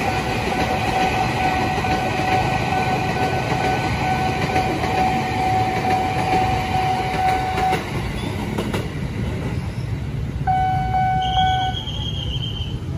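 KRL Commuter Line electric train (ex-JR 205 series) running past close by: steady train noise with a steady high tone that stops about eight seconds in. Near the end an approaching train sounds its horn: a short note, then a higher one.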